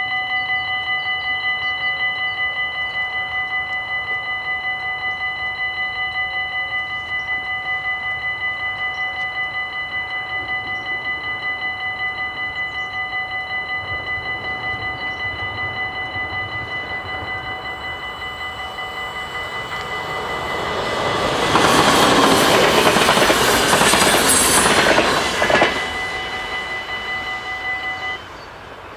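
Railway crossing warning bells ringing in a fast, even rhythm. About twenty seconds in, a train passes, growing loud for some four seconds and drowning the bells. The bells stop about a second before the end, as the crossing clears.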